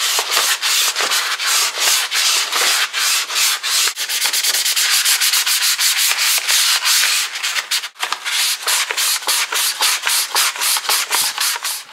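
Fine 1200-grit sandpaper rubbed quickly back and forth by hand along the steel cylinder of a hydraulic jack, smoothing its tired surface: a hiss with each stroke, about four strokes a second, with a brief pause about eight seconds in.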